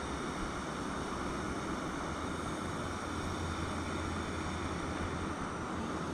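Steady rushing background noise with a low hum underneath, even throughout, with no distinct calls or knocks.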